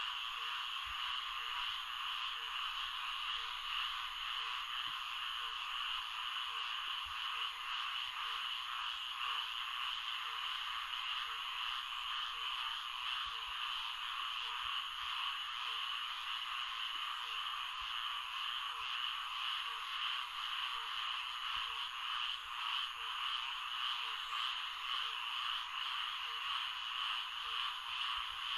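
Swamp at night: a dense, steady frog chorus, with one lower call repeating evenly about one and a half times a second.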